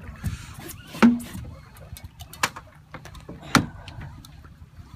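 Big conventional fishing reel's drag giving line with a whirring, zipping sound as a hooked sturgeon runs, with several sharp knocks among it.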